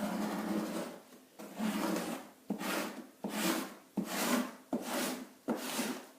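Hand scraper dragged over a painted pine floor in about seven quick, rasping strokes. It is scraping at a light faux finish that the paint stripper has not loosened well.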